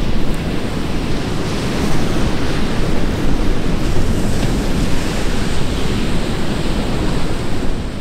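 Loud, steady rushing of a waterfall on a mountain stream.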